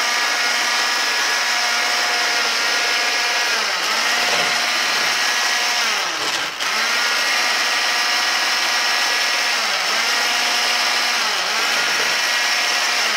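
1000 W electric hand mixer running with its twin beaters whipping milk and whipped-cream powder into chantilly cream, a steady motor whine. Its pitch sags briefly a few times and recovers.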